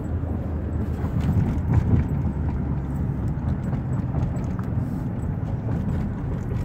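Car cabin noise: a steady low rumble of the car's engine and road heard from inside, with a few faint light ticks.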